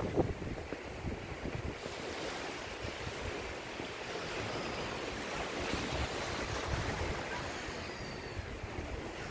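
Ocean surf washing steadily onto a beach, with wind buffeting the microphone.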